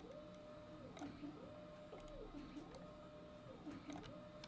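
Faint computer mouse and keyboard clicks, scattered and irregular, over a low background tone that rises, holds and falls again about every second and a bit.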